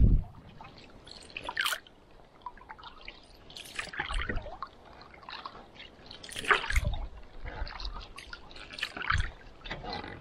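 Wooden canoe paddle strokes in lake water: splashes and drips of water off the blade, about four strokes roughly two and a half seconds apart.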